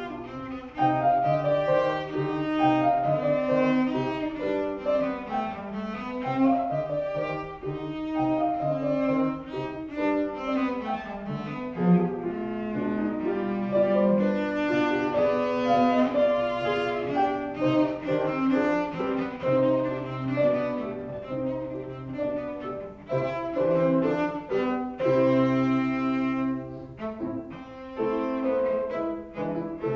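Cello bowed in a continuous melodic line, accompanied by piano.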